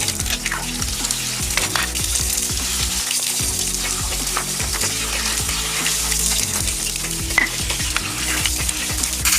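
A steady crackling, sizzling hiss with scattered small clicks, over background music with a low bass line.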